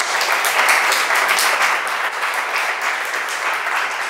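A small seated audience applauding, many hands clapping together steadily, easing off slightly toward the end.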